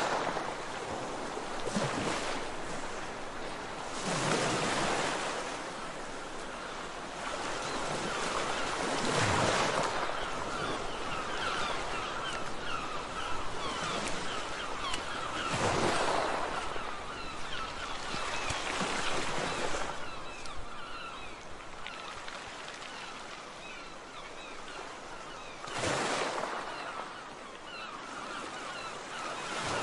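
Ocean waves breaking and washing up the shore: a steady rush of surf that swells into a louder break every few seconds and falls away again.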